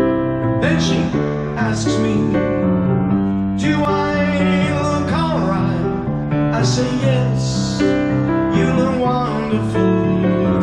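Live piano with a man singing over it: sustained piano chords and a sung vocal line.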